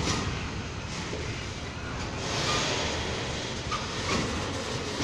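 Enclosed car-carrier freight wagons rolling slowly over a street level crossing: a steady rumble of wheels on rail, with a few sharp clicks and a couple of short faint squeaks.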